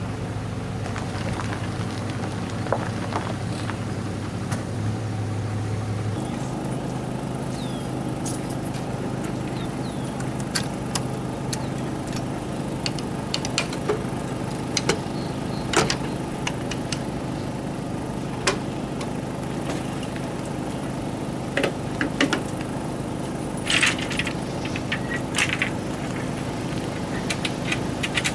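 A steady low engine hum with scattered metallic clicks and clanks. Near the end, a toy-hauler trailer's rear ramp door is unlatched and lowered.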